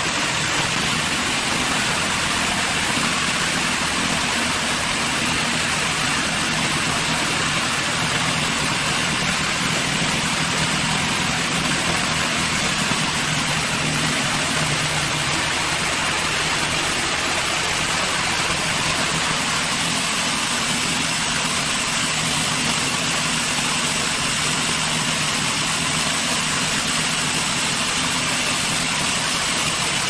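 Portable band sawmill's engine running steadily, with a continuous hiss over it.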